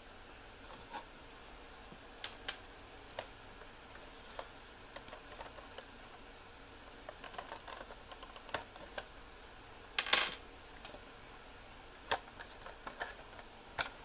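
Faint, scattered clicks and light knocks of small hard objects being handled, with one louder rustling clatter about ten seconds in.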